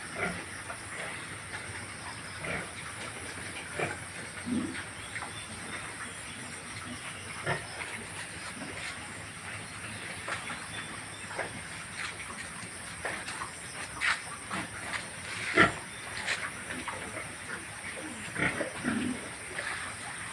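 Pigs grunting and calling in short, irregular sounds, over a steady high hiss.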